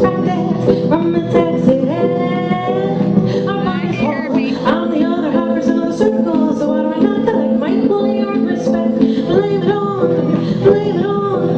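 Live hip-hop band music played loud through a club PA: a melodic singing voice over a sustained instrumental backing.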